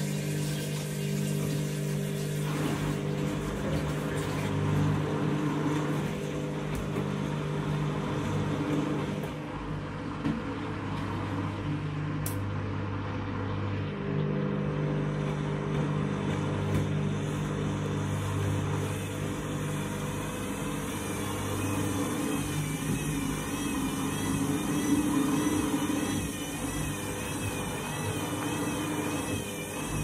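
Front-loading washing machine tumbling wet laundry in water, with the drum motor humming steadily and water sloshing. About twenty seconds in, a faint warbling whine joins the hum.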